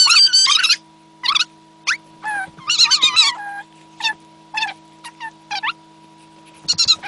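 Bursts of high-pitched animal calls: short, wavering squeals and chirps repeated in quick runs, with pauses between them.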